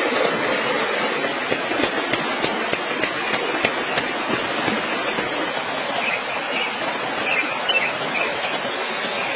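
Steady rushing of a fast forest stream, with faint high chirping about six to eight seconds in.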